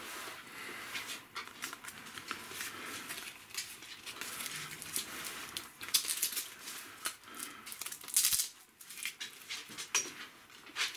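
A thin steel bow saw blade being slid out of its packaging and handled: rustling of the wrapper, with scattered light clicks and taps as the blade flexes and knocks.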